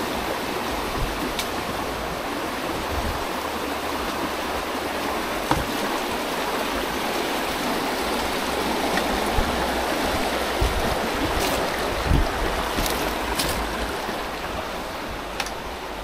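River water flowing past in a steady, even rush, with a few brief clicks over it.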